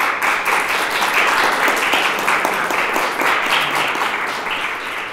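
An audience applauding, many hands clapping at once, tapering off near the end.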